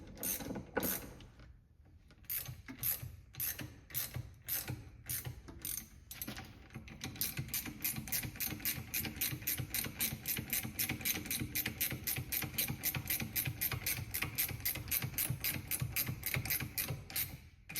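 Ratchet wrench clicking as it turns a threaded bushing-press tool, drawing an STI steering rack bushing into the rack bore. The clicks come unevenly at first with a short pause, then settle into a fast, steady run of about five a second.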